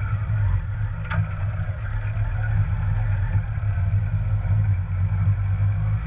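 Motorcycle engine running while the bike rides along, a steady low rumble with wind and road noise on the bike-mounted microphone. A single sharp click sounds about a second in.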